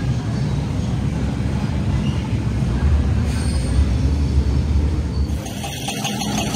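MTR M-Train electric multiple unit running along an underground platform behind platform screen doors: a steady low rumble with a brief faint wheel squeal past the middle. About five seconds in the sound changes abruptly to a thinner train sound with far less low rumble.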